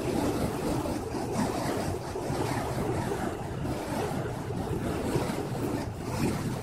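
Steady rushing noise of wind buffeting the phone's microphone.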